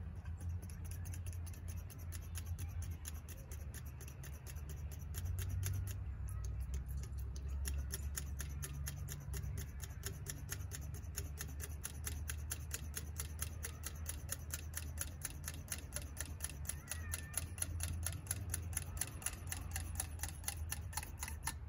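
Rapid, even ticking, several clicks a second, over a low steady hum.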